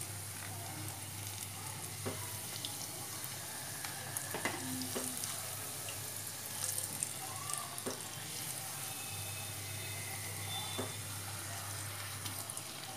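Potato and onion pakoras in gram-flour batter deep-frying in hot oil, sizzling steadily, with a few light clicks and pops.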